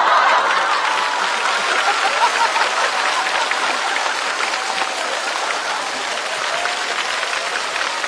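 Studio audience applauding and laughing after a punchline: steady clapping that eases slightly toward the end.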